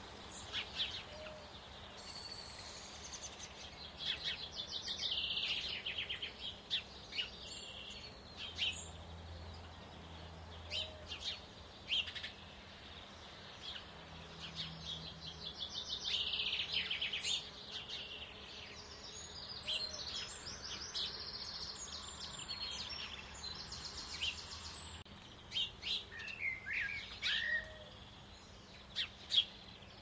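Small songbirds chirping and chattering: short high chirps and several runs of rapid, high chattering notes, overlapping at times, over a faint steady hum.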